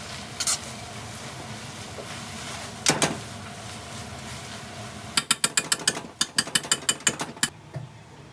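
Wooden spatula knocking and scraping against a frying pan while stir-frying onion in black bean sauce: a couple of single knocks, then a quick run of sharp taps, about six a second, for a couple of seconds near the end.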